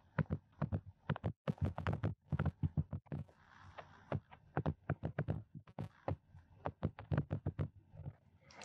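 Digital pen tapping and scratching on a tablet screen while handwriting, an irregular run of small clicks.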